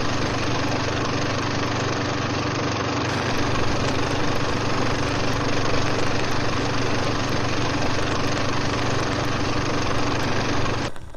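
A steady, machine-like drone with a low hum under dense noise, unchanging throughout, cutting off sharply near the end.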